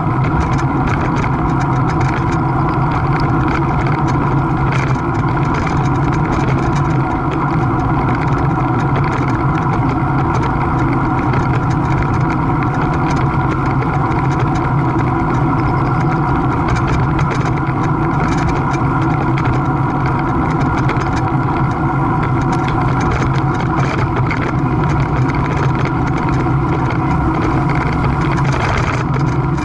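A steady mechanical drone with several held tones, loud and unchanging throughout.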